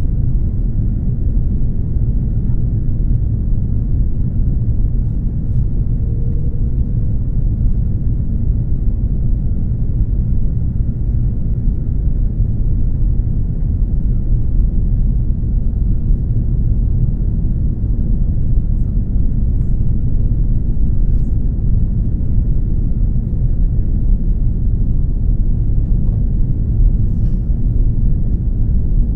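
Steady low rumble inside the cabin of an Airbus A330 on the ground after landing: engine and rolling noise heard through the fuselage, with a faint thin whine above it.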